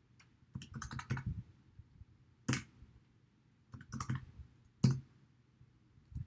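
Computer keyboard typing: short runs of quick keystrokes with a few single, harder key presses, the loudest about five seconds in.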